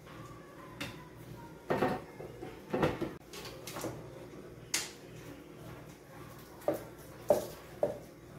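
Kitchen cookware clattering twice, about two and three seconds in, as a cooking pot is handled at the stove. Then a serving spoon knocks three times against the stainless steel pot near the end as pasta is scooped out.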